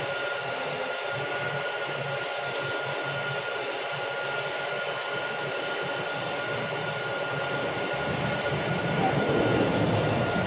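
Milling machine spindle turning a 1-inch drill bit that is cutting slowly into an oiled steel workpiece: a steady machine noise with a constant high whine, getting louder over the last couple of seconds. The bit is nearly through the hole.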